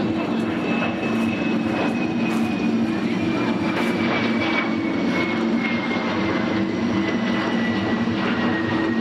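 Airplane passing over: a steady engine rush with a thin whine that slowly falls in pitch.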